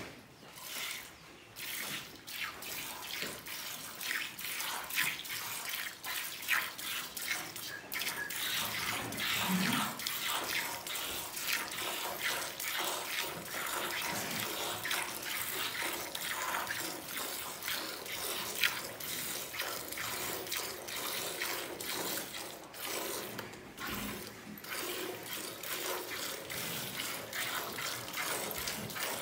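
Milk squirting from a cow's teats into a steel pail of frothy milk, hand-milked in a quick, continuous run of splashing streams.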